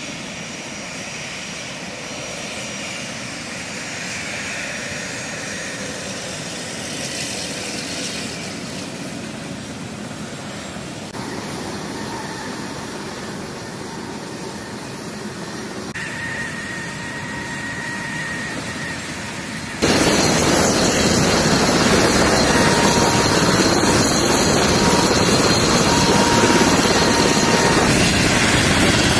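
Steady jet-engine noise with a high whine, from the A-10C Thunderbolt II's TF34 turbofan engines running on the ground. About two-thirds of the way through it gives way suddenly to much louder, dense rotor and turbine noise from an H-60 helicopter running on the ground.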